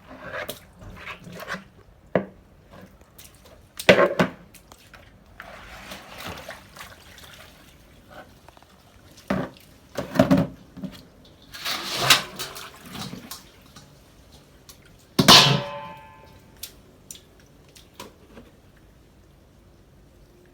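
Water splashing and pouring in irregular bursts as wet socks are handled by hand. There is a sharp knock with a short ringing tail about fifteen seconds in.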